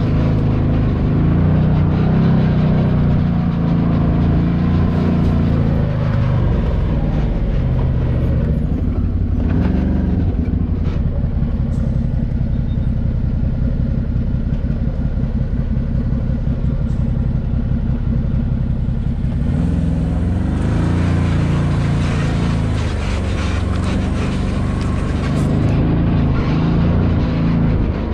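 Can-Am Maverick Sport's 100 hp Rotax V-twin engine running under way, its pitch rising and falling as the throttle is worked. For about ten seconds in the middle the sound turns duller and thinner, then comes back full.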